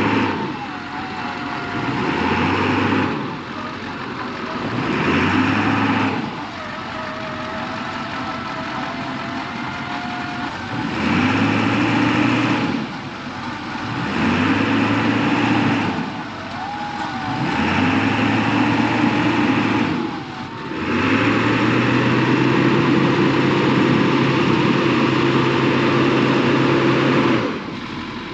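Vehicle engine revved repeatedly in bursts of one to six seconds over a running idle, the pitch climbing at each burst, while spinning its tires down into deep sand so it won't roll back during a winch pull.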